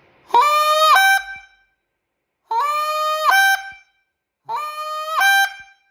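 Goose call blown three times in the goose's honk: each note about a second long, starting low and cracking up to a higher pitch at its end.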